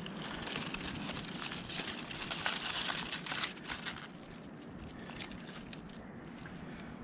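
Dry leaf litter crackling and crunching, with a dense run of small sharp crackles for the first few seconds, then quieter with a few scattered ticks.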